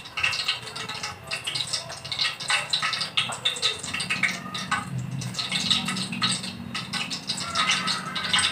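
Hands coating chicken pieces in a bowl of flour: irregular dry scratching and rubbing strokes. A low hum joins in from about halfway through.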